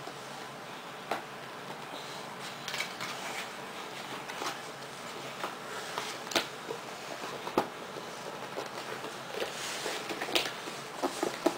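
Scattered light clicks, taps and rustles of things being handled at close range, with a cluster of sharper clicks near the end.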